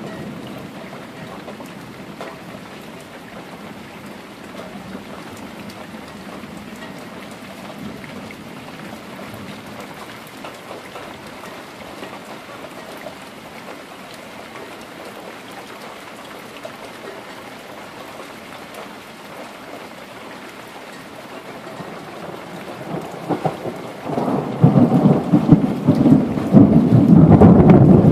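Steady rain falling, then near the end a loud roll of thunder that rumbles on unevenly.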